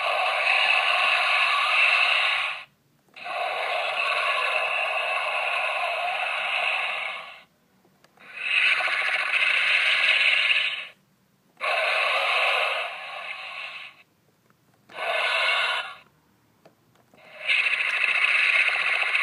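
Electronic dinosaur roar sound effects from the Ultimate Gorgon (Gorgosaurus) toy's built-in speaker, triggered by pressing its back: six separate roars of one to four seconds each, with short silences between them, cycling through the toy's different sounds. They are thin, with no bass.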